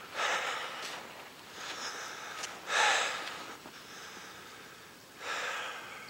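A man's heavy breathing from the effort of trudging through deep snow: four hard breaths, the third the loudest.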